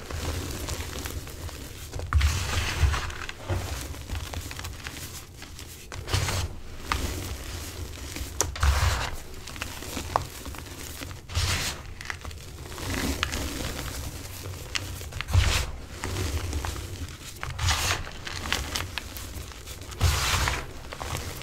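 Hands crushing and squeezing reformed blocks of dyed gym chalk and instant snow, soft powdery crunching and crumbling in bursts every second or two, with a quieter rustle of powder between them.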